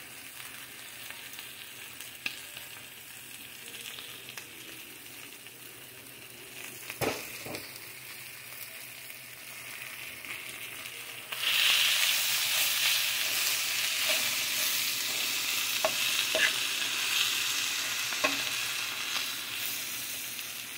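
Chicken and spinach sizzling in a frying pan, fairly quietly at first, then suddenly much louder from about eleven seconds in. A single knock about seven seconds in, and a few light clicks.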